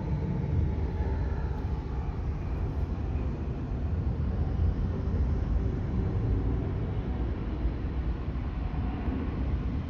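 Jet airliner engines running with a steady low rumble, with a faint whine falling in pitch over the first few seconds.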